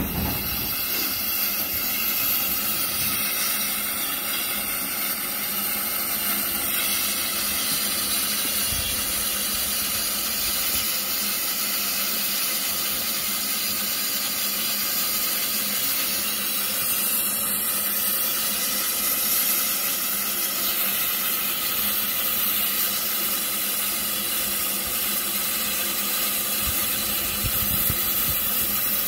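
Steam locomotive hissing steadily as steam escapes from the top of its boiler near the cab.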